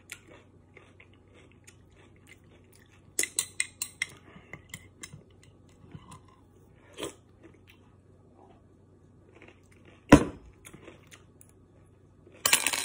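Someone chewing pickled garlic cloves, with a metal spoon clinking against a glass jar in a quick run of clinks about three seconds in and again just before the end. A single sharp knock comes about ten seconds in.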